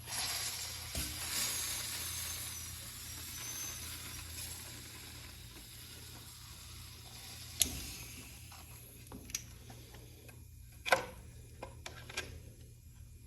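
Air rushing from an air tank through a Schrader valve adapter into a tubeless road bike tyre: a hiss that starts suddenly and fades away over several seconds. In the second half come four separate sharp clicks or snaps.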